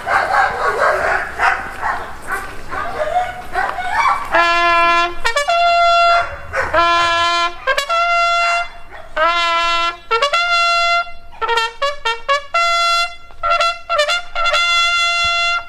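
A military trumpet plays a ceremonial call for the raising of the flag: clear notes on a few pitches, some short and some held, the last one held long. For the first few seconds, before the call starts, there is barking and crowd noise.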